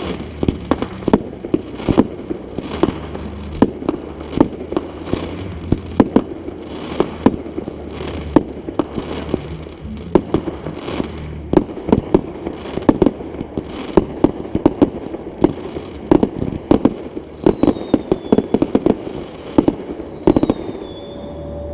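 Fireworks display in a rapid barrage: many sharp bangs and crackles, several a second, with a few falling whistles near the end.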